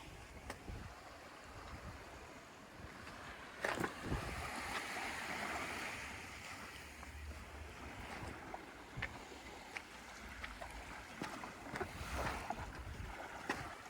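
Small waves washing on a beach, with wind rumbling on the microphone and a few short sharp clicks, the loudest about four seconds in.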